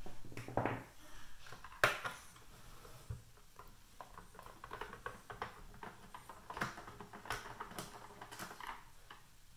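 Screwdriver backing out screws from the plastic case of a Nellcor N-600x pulse oximeter monitor: scattered small metallic clicks and scrapes, with one sharper knock about two seconds in.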